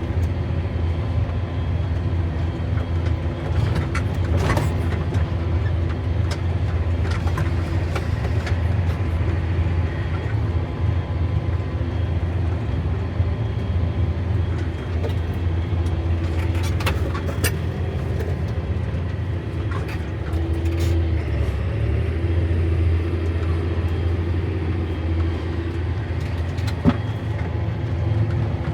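Tractor engine running steadily while pulling a hay rake, a constant low drone with scattered sharp clicks and rattles.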